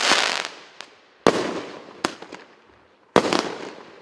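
Consumer firework cake firing its salvos. Two sharp bangs come about two seconds apart, each trailing off into a fading hiss and crackle, after the tail of the previous shot.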